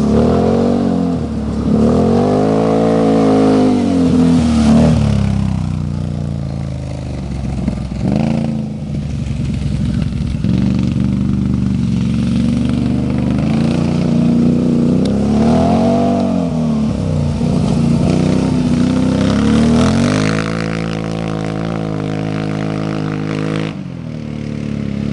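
Can-Am Outlander 650 ATV's V-twin engine running through an HMF aftermarket exhaust, revved up and back down several times. Near the end it is held at a steady higher rev for a few seconds, then drops back.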